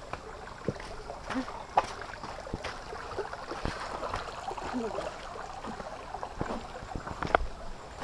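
Shallow rocky stream trickling and babbling over stones, a steady water hiss. Scattered sharp clicks and knocks stand out over it, the loudest about two seconds in and near the end.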